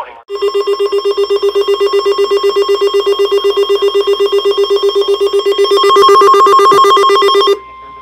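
Alert Works NOAA weather alert radio sounding its warning alarm for a flash flood warning: loud rapid electronic beeping, about ten pulses a second, that grows louder near the end and cuts off suddenly, leaving a fainter steady tone.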